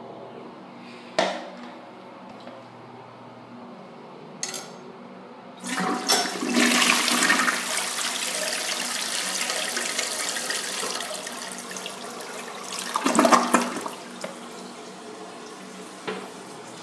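Briggs Altima toilet flushing: after a couple of short clicks, water rushes into the bowl for about eight seconds, rising to a loud gulp as the bowl siphons out. Then a quieter steady hiss of the fill valve refilling, a valve that the uploader says won't fill the bowl up. A click near the end.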